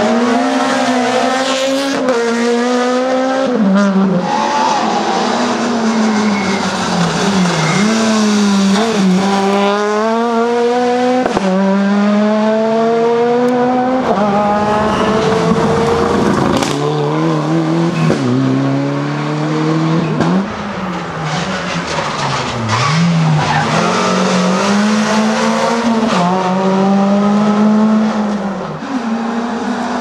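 Rally cars at full effort passing one after another, among them a Honda Civic Type R and a Mitsubishi Lancer Evolution. Each engine revs hard, climbing in pitch through a gear and dropping back at every shift, over and over, with the revs falling away under braking into corners.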